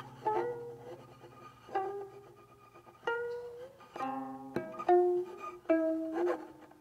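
Guqin, the seven-string Chinese zither, played solo: about eight slow plucked notes that ring and fade, several of them bending in pitch as they slide along the string.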